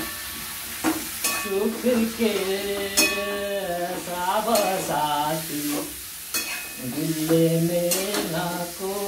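Chicken pieces frying in a thick masala in a pan, stirred with a spoon that scrapes and knocks against the pan several times. A wavering tune runs underneath.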